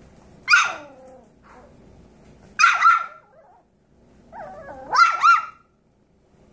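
Seven-week-old Yorkshire terrier puppy barking in high yaps, in three bouts. The first comes about half a second in and trails off downward like a whine, the second is a quick double yap about two and a half seconds in, and a cluster of yaps comes near the end.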